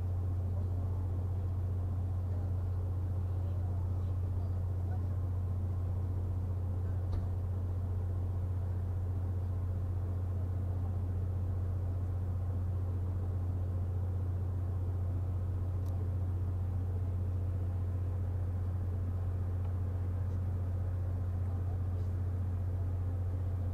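A steady, unbroken low mechanical hum, like an idling engine, with no fireworks bursts.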